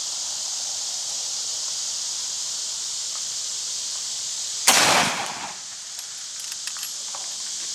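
A single shot from a reproduction 1847 Springfield Dragoon smoothbore carbine loaded with an 80-grain powder charge and a round ball, fired about three-quarters of the way in, its report dying away over about half a second. Crickets chirr steadily throughout.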